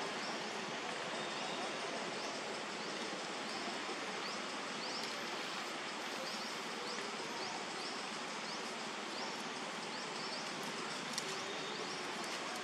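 Steady outdoor background hiss, with a short high chirp repeating about once a second.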